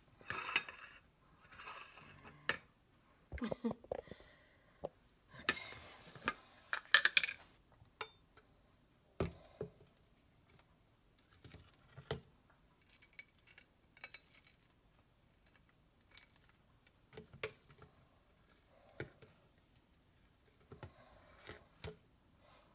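Scattered clicks, knocks and scrapes of a peanut butter jar, its lid, a table knife and a plate being handled, with a louder stretch of scraping about six seconds in. Near the end the knife scrapes peanut butter out of the jar and spreads it on a slice of bread.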